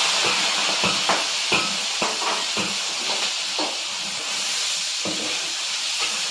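Food sizzling loudly in hot oil in a wok, a steady hiss with scattered pops and spatters.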